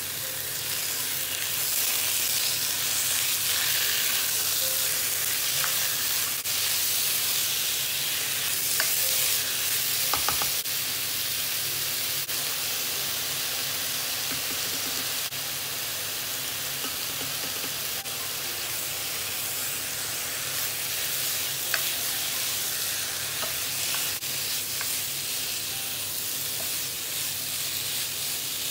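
Diced chicken breast sizzling in hot oil in a nonstick wok with onions and curry leaves, a steady hiss, while a spatula stirs and turns the pieces, with a few sharp clicks of the spatula on the pan.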